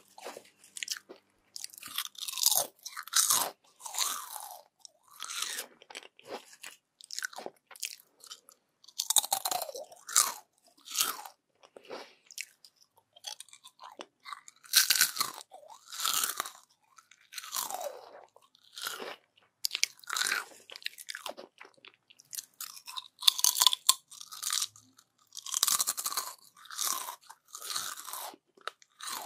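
Crisp yam chips being bitten and chewed close to the microphone: a run of sharp, crackly crunches, one after another with short pauses between bites.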